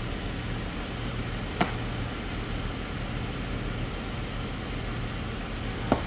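Jeep Wrangler engine idling steadily with a low hum while it waits on the rocks. Two sharp knocks stand out, about a second and a half in and near the end, like rocks knocked together as the spotters shift them by the front tyre.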